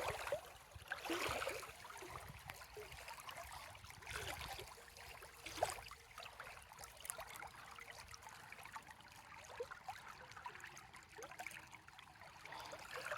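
Faint flowing river water trickling, with scattered small splashes and clicks.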